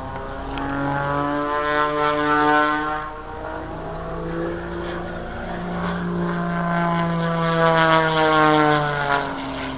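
Single-engine propeller aerobatic plane's piston engine and propeller droning through a manoeuvre, the note swelling twice, loudest at about two and a half seconds and again near eight seconds, with its pitch sliding down and back up in between.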